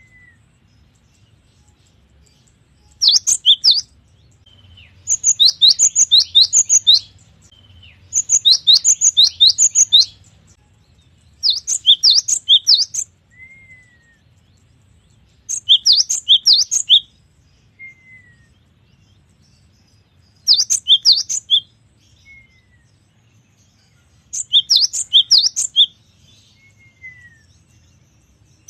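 A cinereous tit (gelatik batu) singing in loud, rapid bursts of sharp, high repeated notes. About seven phrases come, each lasting a second or two, with pauses between them and a soft, short falling note in some of the gaps.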